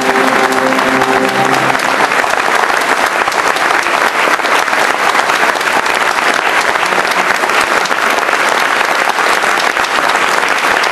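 Audience applauding steadily. A sustained musical chord sounds under the clapping and stops about a second and a half in.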